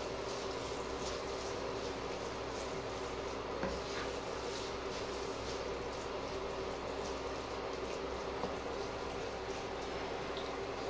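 Sardine, onion and chilli paste frying in a nonstick wok: a steady sizzle, with a few light knocks of a wooden spatula as it is stirred.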